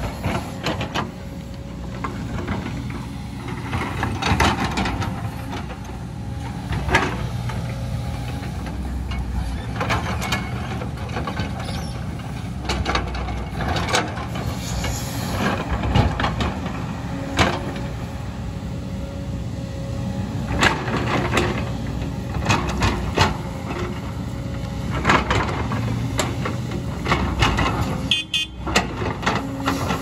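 JCB tracked excavator's diesel engine running steadily under load as the bucket digs into rocky landslide debris, with repeated knocks and clatters of rock and dirt against the steel bucket.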